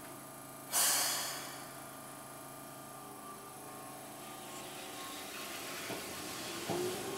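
Keihan 700 series train starting away from a platform. A sharp burst of air hiss about a second in, typical of the air brakes releasing, then a steady motor hum and wheel noise growing louder as it moves off, with a couple of clacks near the end.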